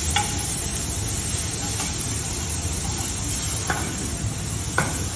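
Shaved steak sizzling steadily in a very hot sauté pan with canola oil, with three short clicks, one near the start and two in the last second and a half.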